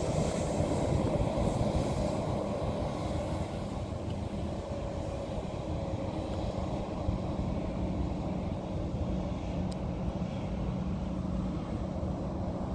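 Embraer E190's twin GE CF34 turbofans at takeoff power, a steady low jet rumble heard from a distance as the airliner rolls away down the runway, a little louder in the first couple of seconds.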